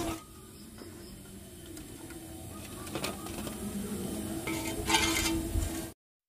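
Quiet background noise with a few light clicks and a brief rustle about five seconds in, then the sound cuts off abruptly to silence.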